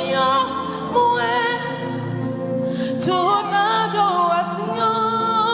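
Gospel praise singing with instrumental accompaniment, the sung line sliding and bending in pitch over a sustained backing.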